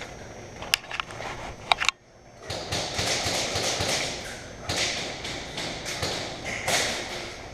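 A few sharp clicks and taps in the first two seconds, then steady rustling and shuffling with occasional thuds, like a player moving in gear close to the camera.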